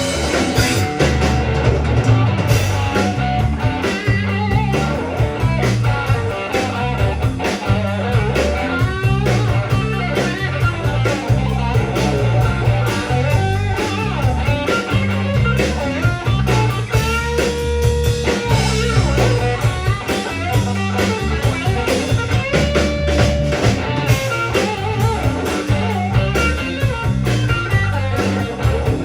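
Live rock band playing an instrumental passage with no vocals: electric guitar leading with bent notes over bass and a drum kit.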